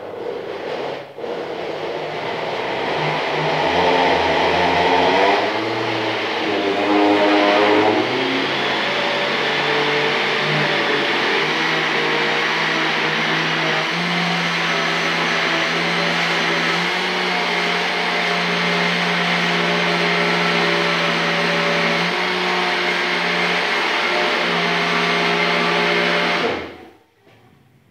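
Electric countertop blender running, puréeing chunks of overripe banana. It stops briefly about a second in, its pitch shifts over the next several seconds, then it holds steady until it is switched off near the end.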